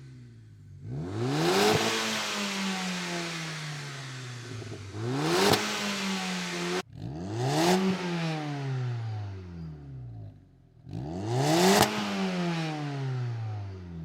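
Audi A4 B7's 2.0 TFSI turbo four-cylinder revved four times through a 4-inch exhaust muffler with its dB killer removed; each rev climbs quickly in pitch and falls more slowly back toward idle.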